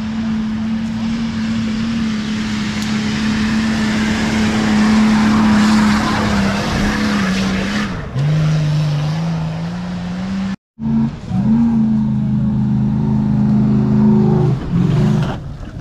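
Off-road 4x4's engine held at high revs, its pitch steady for several seconds, then dropping and climbing again as the revs change. The sound cuts out for an instant a little past the middle.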